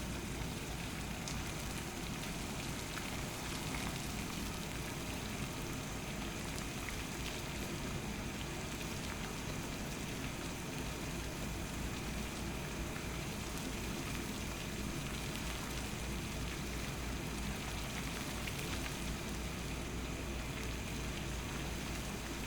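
Pot of water at a rolling boil on a stove, bubbling steadily.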